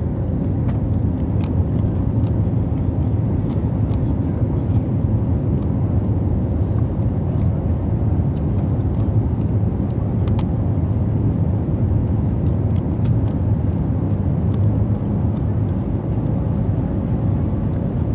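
Steady engine and airflow noise inside an airliner's cabin during take-off, a low, even rumble that holds level throughout.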